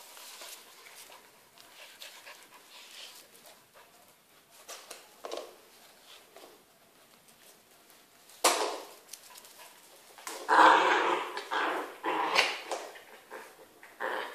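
Pet dogs panting and sniffing close to the microphone, with a few louder bursts in the second half.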